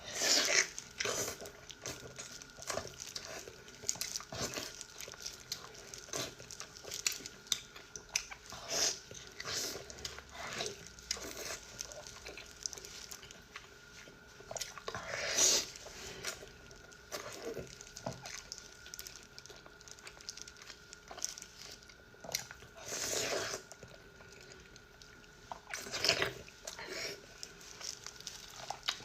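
Close-up eating sounds of fatty pork and noodles: wet chewing, bites and mouth smacks, with a few longer, louder noisy sounds about halfway through and again near the end.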